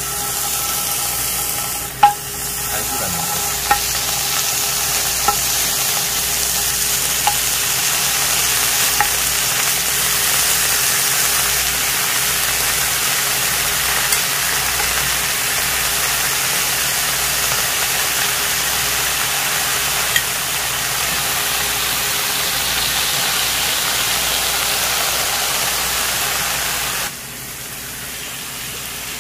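Pork belly slices sizzling loudly on a hot griddle pan, with metal tongs clicking against the pan a few times in the first ten seconds as more slices are laid down. Near the end the sizzle suddenly drops to a quieter level.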